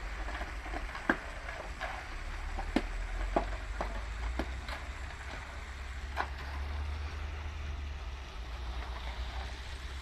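Diesel concrete mixer pump's engine running with a steady low rumble, with scattered sharp knocks and scrapes.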